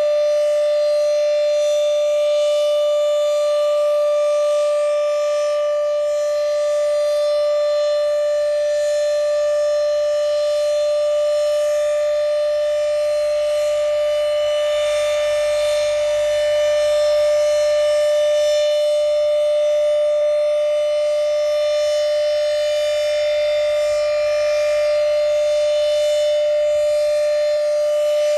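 Federal Signal Thunderbeam (RSH-10) outdoor warning siren sounding the Alert signal: one steady, unwavering tone with strong overtones, held without rising or falling.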